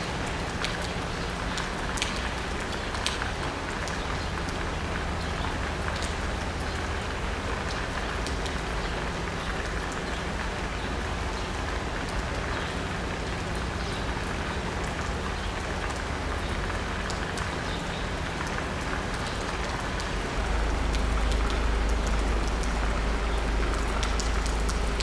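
Steady rain falling on asphalt and a roof, with individual drops ticking. Under it a low rumble swells louder about twenty seconds in.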